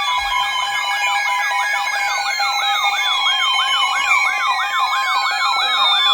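Several Emergency Alert System broadcasts playing over one another: a steady two-tone attention signal and on-off data-burst beeps, under electronic siren sounds. The siren sounds are fast up-and-down yelps about three a second and slow falling wails.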